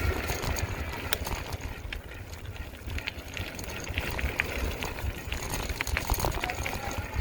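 Riding a Lectric XP Lite e-bike over gravel: a steady low rumble of wind on the microphone and tyres rolling, with scattered small clicks and ticks from the tyres and bike.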